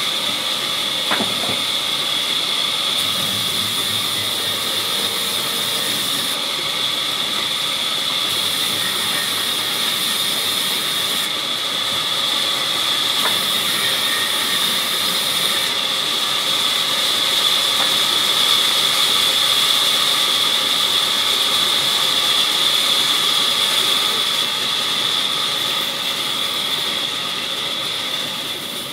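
Sawmill band saw running and ripping teak planks, a steady high-pitched whine over the rasp of the blade through the wood.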